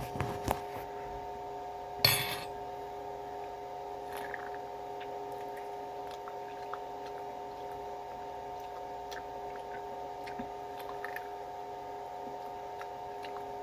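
A steady electrical hum made of several fixed tones, with a few small clicks near the start and one sharp clink about two seconds in, then faint scattered ticks.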